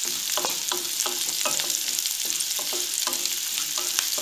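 Onions frying in hot oil in a metal kadai, sizzling steadily while a spatula stirs them, scraping the pan in quick repeated strokes about three times a second. The onions are being fried until golden.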